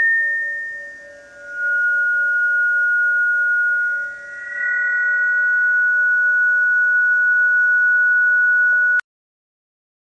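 Sustained pure, steady tones: a high tone that dips and shifts to a new pitch twice, over a faint lower steady tone. All of it cuts off abruptly about nine seconds in, into dead silence.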